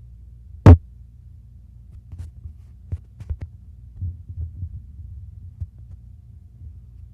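One sharp, loud knock about a second in, then several softer knocks and bumps over a steady low hum.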